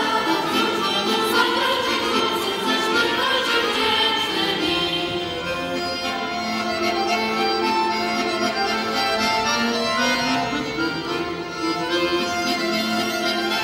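Polish folk ensemble playing a Christmas pastorałka on accordion and fiddle, with group singing in the first few seconds before the instruments carry on alone.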